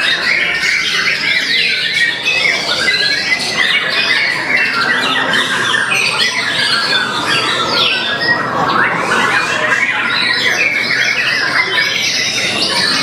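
White-rumped shama (murai batu) singing a dense, rapid, varied song packed with imitations of other birds' calls, among other caged contest birds singing at the same time. The quick chirps and whistles overlap without a break.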